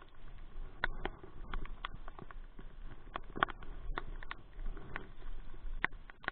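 Rain falling, a steady hiss with irregular drops tapping sharply close by.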